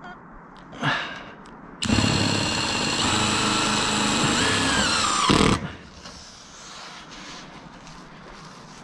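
Cordless driver screwing into steel roof flashing: a short burst about a second in, then a steady run of about three and a half seconds that shifts in pitch near the end and stops sharply as the screw seats.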